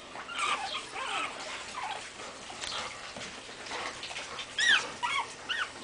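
A litter of five-week-old pug puppies whimpering and yipping, many short high calls overlapping one another, with a run of louder, sharper squeals near the end.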